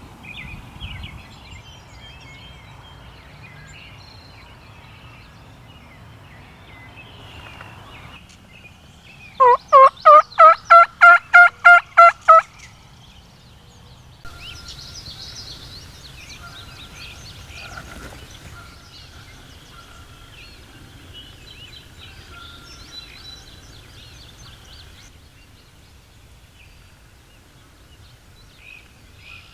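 A wild turkey tom gobbling once, close and loud, about ten seconds in: a rapid rattling run of about a dozen notes lasting some three seconds. Faint songbird calls come before and after it.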